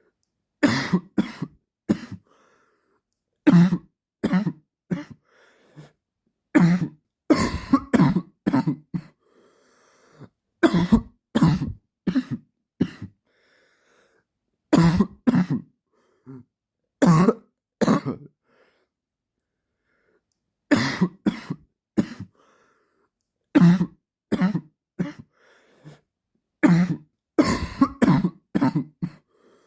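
A man's persistent dry cough: runs of several short, sharp coughs with pauses of a second or two between the runs.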